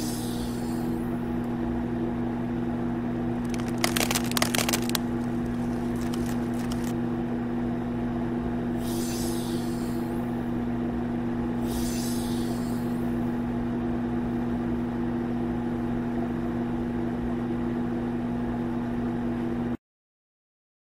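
Steady machine hum of an animated hydraulic ram, with a few short hissing bursts. Around four seconds in there is a rattling clatter as blocks are pushed off and tumble. The sound cuts out abruptly near the end.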